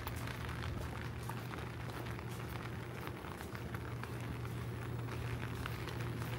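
Rain falling, with many small drops ticking irregularly over a steady low hum.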